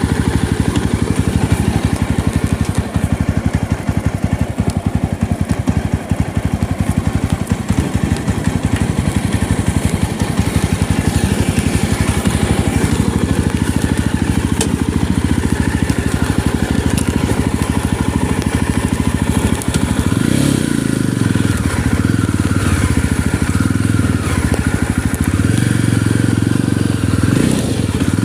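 Yezdi Roadster's single-cylinder motorcycle engine running under way, with a steady, fast pulsing note. About two-thirds of the way through, the engine speed starts to rise and fall with the throttle.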